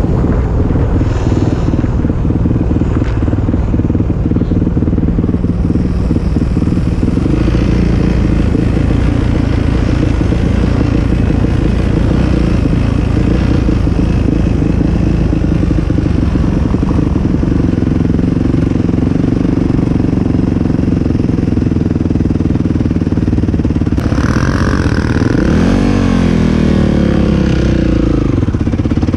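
ATV engine running steadily while riding, a loud continuous drone. Near the end the engine note climbs and falls a few times as it revs.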